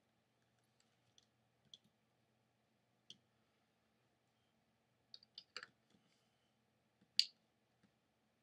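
Scattered small clicks and taps from a resin ball-jointed doll body being handled and its parts knocking together, with a cluster of clicks about five seconds in and one sharper click about seven seconds in.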